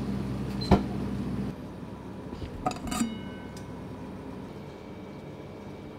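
Cookware clinking: a sharp knock about a second in over a steady low hum that stops abruptly, then two quick metallic clinks near the middle that ring on briefly.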